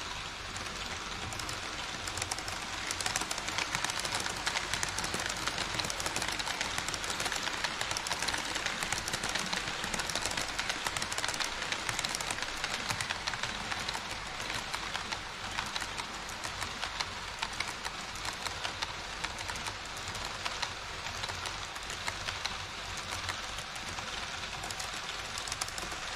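HO scale model trains, the Twilight Express coaches and then an E5 Shinkansen, rolling along Kato Unitrack and over a plastic truss bridge. A steady rumble of wheels and motors with dense fine clicking, a little louder from about two seconds in.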